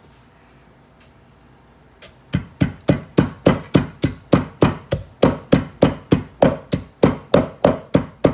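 Pestle pounding sliced lemongrass in a mortar: steady, evenly spaced strikes about three or four a second, starting about two seconds in.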